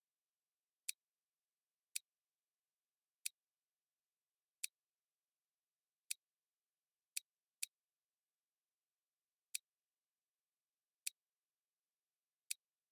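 Computer mouse button clicking: about ten single sharp clicks at irregular intervals of one to two seconds, two of them close together about seven seconds in.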